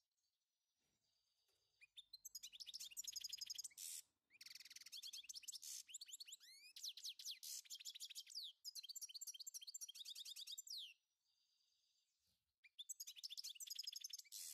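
Small songbird singing long phrases of rapid, high chirps and trills, with short pauses between phrases; the song starts about two seconds in, breaks off briefly about three-quarters of the way through, and resumes near the end.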